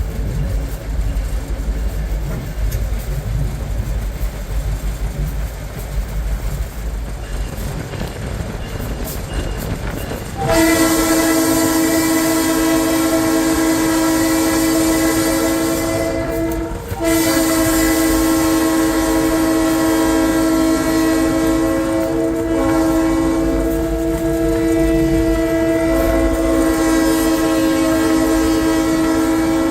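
EMD SD9M diesel locomotive heard from inside its cab: the engine rumbles low, then about ten seconds in the multi-note air horn sounds a long blast. After a brief break about six seconds later, a second, longer blast runs on to the end.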